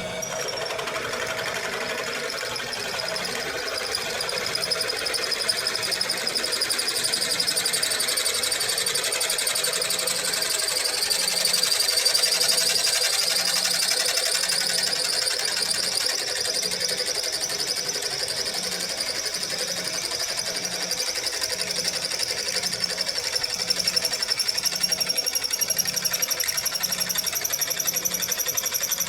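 A high-speed motor running steadily with a high whine that rises slowly in pitch, over a regular low pulse about every two-thirds of a second.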